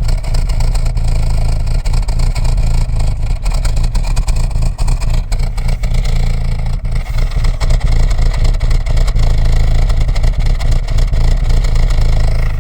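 Audi A4 B6 2.0 ALT four-cylinder engine running cold and rough, like a diesel, with loud irregular knocking from under the valve cover, where the camshaft phaser and the chain between the two camshafts sit. The owner suspects a stretched, slipping timing chain or a broken sprocket tooth.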